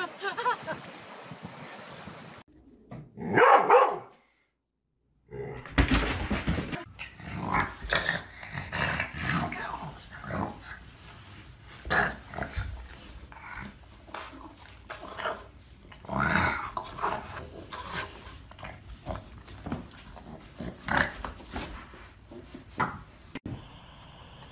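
Dogs growling and barking in many short, irregular bouts.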